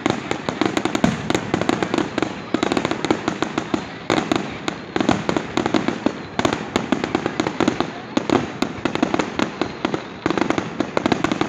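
Fireworks display: a rapid, continuous barrage of bangs and crackling bursts in dense clusters.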